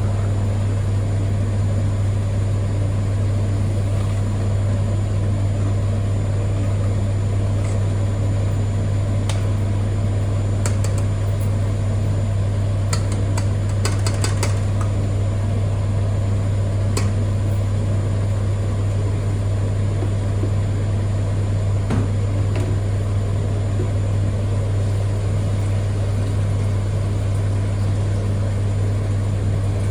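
Steady low electrical hum of a running household appliance, with a few faint light clicks between about 8 and 15 seconds in.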